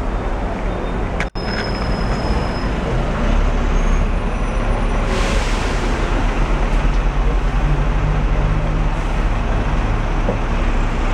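Hong Kong tram running, heard from inside the car: a steady rumble with street traffic noise. The sound breaks off for an instant about a second in, and a short hiss rises over it about five seconds in.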